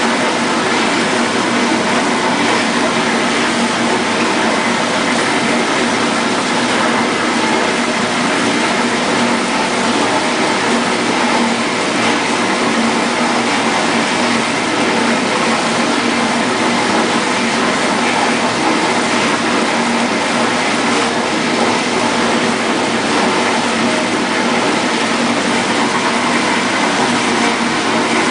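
1958 GE Mobile Maid portable dishwasher running its wash: a steady motor hum under the even rush of water spraying inside the tub, unchanging throughout.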